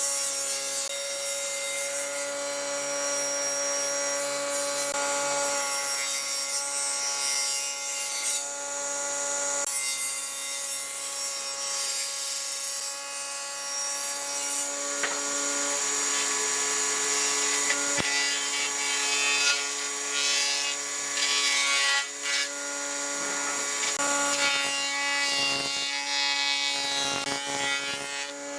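A power tool running on wood: a steady motor whine under a rough rasping of the tool against the wood, its pitch shifting slightly a few times as the load changes.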